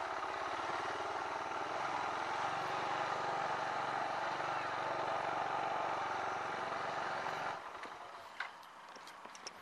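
Motorcycle running at low speed with steady riding noise, which drops away suddenly about seven and a half seconds in as the bike stops; a few faint clicks follow.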